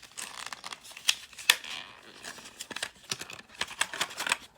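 Irregular light clicks and taps of small hard objects being handled, with two sharper clicks about a second and a second and a half in.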